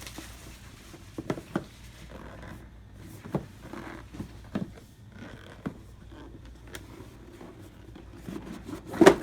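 Cardboard board-game box being handled and worked open: scattered soft taps and scrapes, with one loud thump near the end.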